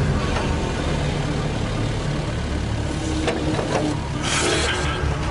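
A digger's diesel engine running with a steady low rumble, with a brief hiss a little over four seconds in.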